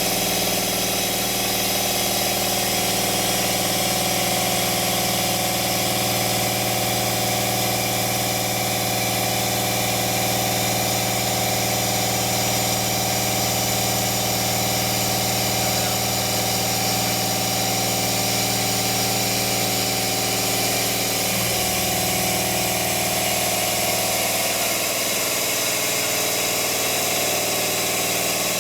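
Lagun CNC milling machine running steadily as it mills an aluminium part, a constant mechanical hum with a layer of hiss. About two-thirds of the way through the tone shifts and part of the low hum drops away.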